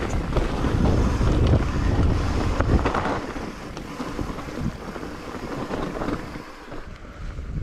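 Wind buffeting the microphone as an e-mountain bike rolls fast down a dirt and stone trail, with tyre crunch and small knocks and rattles from the bike. The buffeting is heaviest for the first three seconds, then eases.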